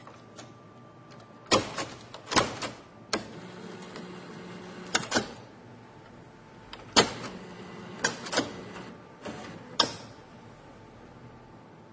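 ATM cash dispenser mechanism running: a motor hums steadily while about a dozen sharp clacks and clunks sound in groups of two or three.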